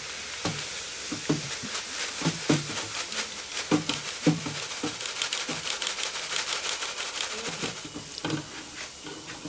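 Hot oil in an electric deep fryer sizzling and crackling around a wire basket of homemade fries in their short final fry. Light metallic knocks come about twice a second as the basket is jiggled by its handle.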